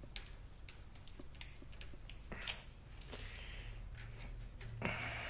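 Small clicks and plastic rattles of a motorcycle wiring connector being worked apart, with one sharper click about two and a half seconds in.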